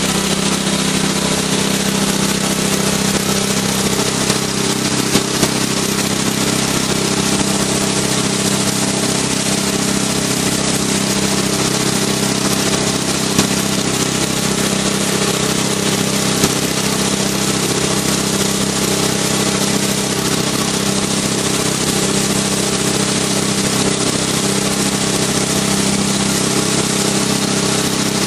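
Small engine driving a high-pressure mist sprayer, running steadily, with a continuous hiss of water atomising from the boom nozzles.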